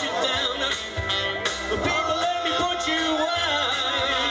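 Male doo-wop vocal group singing in harmony, amplified through a PA.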